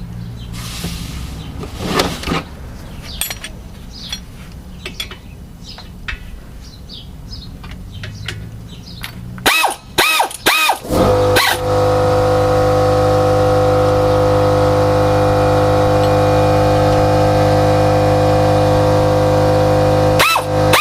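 Scattered clicks and knocks of hand tools on the brake hardware. About ten seconds in, a motor starts with a few short revs up and down, then settles into a loud, steady hum with a whine, cutting out briefly near the end.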